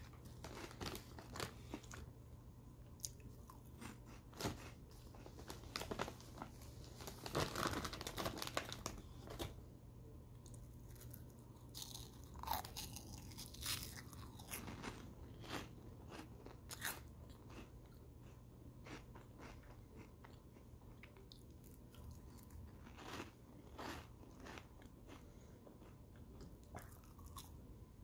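Cheetos being crunched and chewed close to the microphone, in irregular bites and crunches that come thicker in the first half and sparser later. A faint steady low hum runs underneath.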